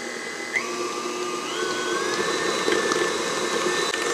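KitchenAid Artisan stand mixer motor whining as its beater mixes powdered sugar into a thick cream cheese frosting. The pitch drops about half a second in, then climbs in two steps as the speed is raised.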